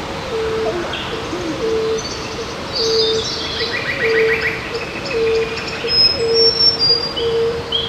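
Rainforest birdsong: a low, even cooing note repeated about every two-thirds of a second, with high chirps and whistles and a short rapid trill about three seconds in, over a steady hiss.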